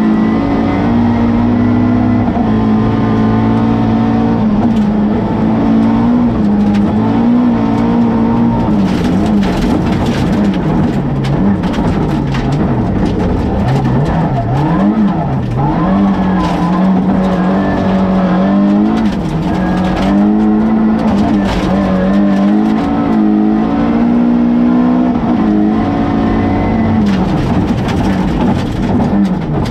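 Rally car engine heard from inside the cabin, driven hard on a gravel stage: the engine note holds high, drops sharply and climbs again several times as the driver brakes and changes gear. Frequent sharp knocks and rattles from gravel and bumps hitting the car.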